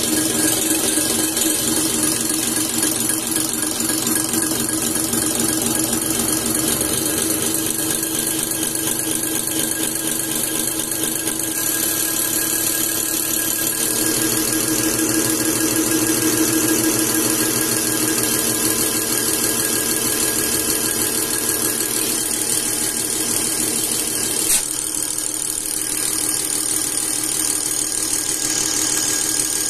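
Diesel injection pump test bench driving a VE rotary injection pump: a steady mechanical whine with a strong high hiss, as fuel is pumped through the test nozzles into the measuring cylinders. The tone shifts a few times, with a brief click near the end.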